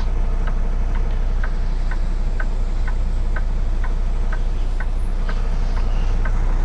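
Semi-truck diesel engine idling with a steady low rumble inside the cab, while a turn-signal flasher clicks evenly about twice a second.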